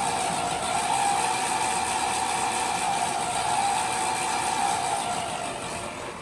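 800 W brushed DC motor of an electric mini bike whining as it drives the raised rear wheel through a belt, spinning freely with no load. The pitch climbs at the start, holds steady, then slides down as the motor winds down near the end.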